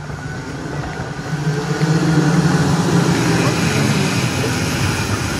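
Racing kart engine passing at speed, its pitched note swelling to a peak in the middle and then easing off.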